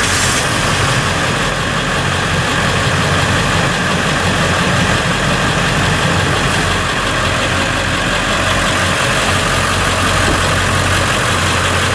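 2002 Ford F-150's 5.4-litre V8 engine idling steadily.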